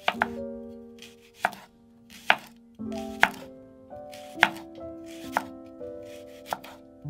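A chef's knife slices a leek into rings on a bamboo cutting board, each cut a crisp crunch and knock of the blade on the board, about once a second. Soft background music plays under it.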